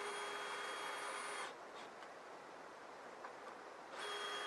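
Power drill running at one steady speed in two bursts with a steady whine: one about a second and a half long at the start, the next starting near the end. The drill is running screws in to fix the mill's guide rail to the log.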